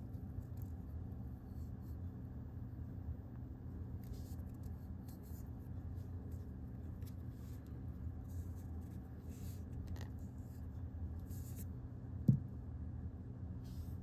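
Faint rustling and scraping of hands handling a three-blade pocketknife, over a steady low hum, with one short knock about twelve seconds in.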